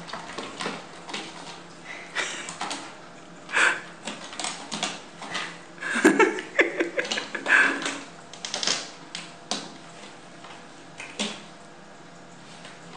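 A cat's claws and fur scratching and rubbing against a sisal-rope scratching post, in irregular scratchy rustles and scrapes. They come thickest around the middle and thin out near the end.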